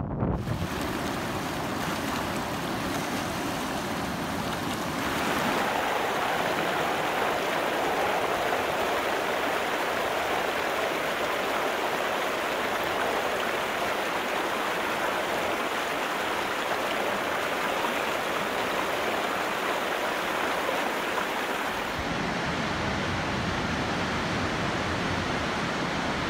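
Fast mountain river rushing over rocks: a steady wash of water noise that shifts in tone about five seconds in and again near the end.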